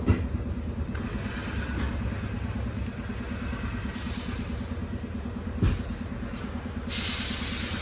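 An engine idling steadily in the background, with a single knock a little past halfway and a short hiss near the end.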